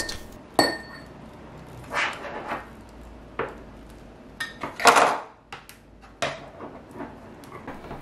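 Utility knife blade scraping around a coaxial cable's outer plastic insulation, then hands bending and pulling the scored piece of jacket off: scattered small scrapes, clicks and rustles, the loudest cluster about five seconds in.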